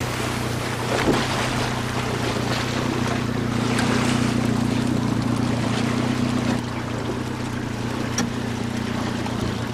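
Boat engine humming steadily, with wind and sea wash on the microphone. A brief sharp knock sounds about a second in.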